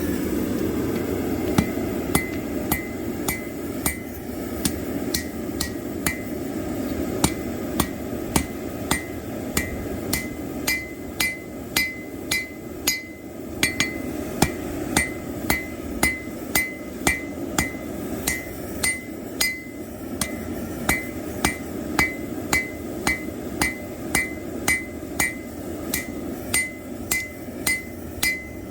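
Hand hammer striking red-hot plow-disc steel on an anvil in a steady rhythm of about two blows a second, each blow with a short metallic ring, as the knife blade's tip is forged to shape. A steady low rushing noise runs underneath.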